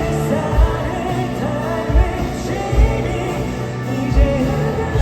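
Pop-rock band music with a steady kick drum beat and singing.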